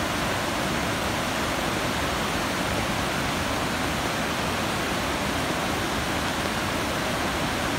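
A river in heavy flood, its muddy water rushing and churning through the channel in a steady, unbroken wash of noise.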